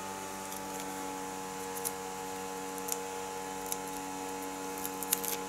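Steady electrical mains hum, with a few faint light ticks scattered through it as small paper pieces are handled.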